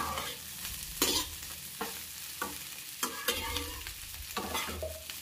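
Cauliflower florets frying in oil in a kadai, sizzling steadily, while a slotted metal spoon stirs them, scraping and knocking against the pan several times.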